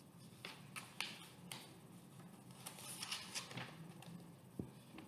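Faint handling noise: a few soft clicks and rustles scattered through the pause, with one dull low thump near the end.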